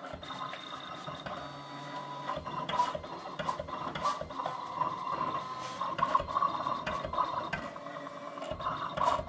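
Siser Juliet cutting plotter running a print-and-cut job: its motors whine as the cutting head travels across the printed transfer sheet and the rollers feed it, with frequent light clicks.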